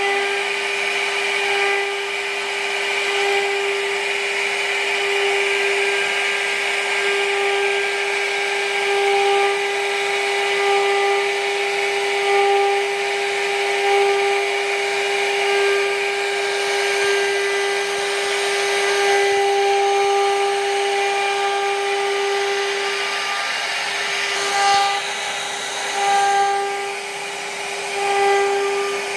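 CNC router spindle whining steadily as its small router bit carves relief grooves into wood, with the hiss of the cut under the whine. The loudness swells and dips every couple of seconds as the cutter moves along its path.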